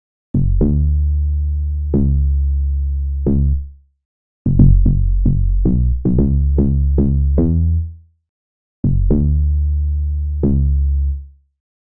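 Three short electronic bass phrases, each a run of sharply struck pitched bass notes over a deep held low end, with silence between them: Amapiano sample previews played one after another.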